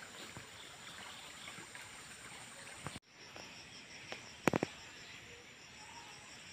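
Faint outdoor ambience: a steady low hiss, broken by an edit about three seconds in, then a faint high pulsing tone and two or three sharp clicks about four and a half seconds in.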